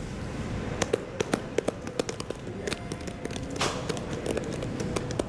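Irregular sharp clicks and taps, several a second, over a low steady background hum, with one brief rushing swell a little past the middle.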